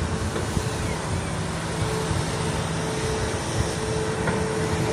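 Hitachi hydraulic crawler excavator's diesel engine running steadily as the arm and bucket work, a constant hum with a higher steady tone over a wash of noise.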